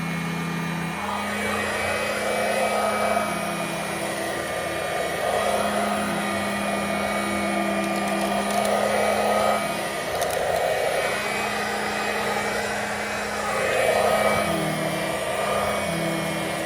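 Dirt Devil two-speed handheld vacuum running on low, sucking at carpet. Its motor hum dips slightly in pitch at times, and the rush of air swells and fades every few seconds as the nozzle works over the carpet.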